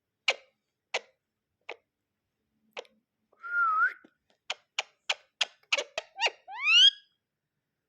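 Pet parrot vocalising: a few separate sharp clicks, then a whistle that dips and rises about halfway through, a quick run of clicks at about three a second, and a rising whistle near the end.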